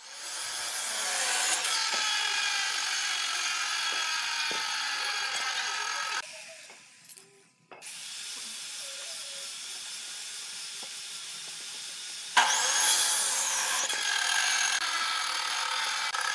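Power tool running on hardwood: a steady high motor whine with a hiss of cutting or abrasion. It fades out about six seconds in and comes back quieter a second or so later, then starts up again louder and sharply about twelve seconds in, its pitch sweeping as it does.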